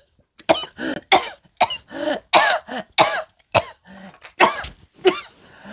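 A woman coughing hard in a fit of about a dozen coughs in quick succession. She has choked, with saliva going down the wrong way.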